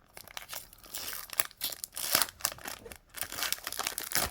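A foil Pokémon booster-pack wrapper crinkling and tearing as it is opened by hand: a quick, uneven run of crackles.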